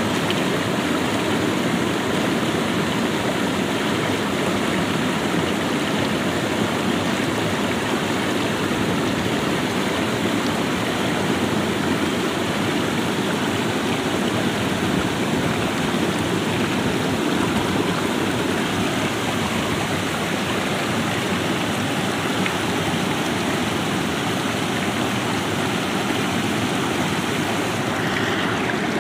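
Shallow river water running steadily over rocks.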